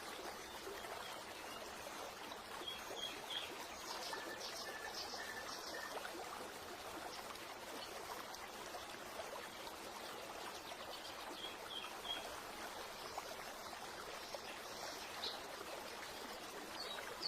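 Steady rush of flowing water, with birds chirping now and then in short groups of high notes.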